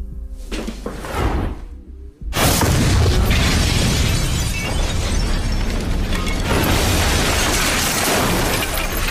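A thrown crystal of fulminated mercury explodes about two seconds in: a sudden heavy boom that blows out the windows, followed by several seconds of shattering glass and falling debris. Music plays underneath.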